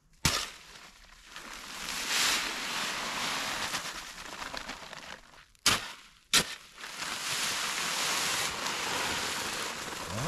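Bags of concrete mix being emptied into a footing hole. There are sharp knocks and slaps of the bags, once near the start and twice about six seconds in, and between them the dry mix pours out in two long, even runs of about four and three seconds.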